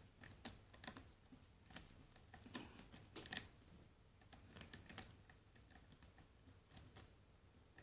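Faint, irregular clicking of a metal lock pick working the pin stack of a clamped padlock under very light tension.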